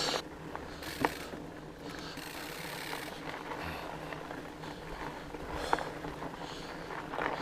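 Fat bike moving over a dirt trail: a low, even rustle with a few sharp clicks, one about a second in and another near the end.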